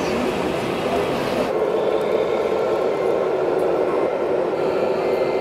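Steady, fairly loud din of a busy exhibition hall, a mix of crowd noise and model vehicle motors with no single sound standing out. The sound changes abruptly about one and a half seconds in.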